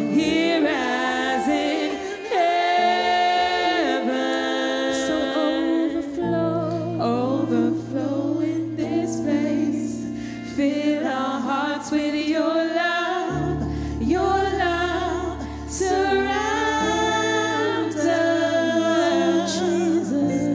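Live gospel worship song: a woman sings lead with backing singers over held keyboard chords, which change about six and thirteen seconds in.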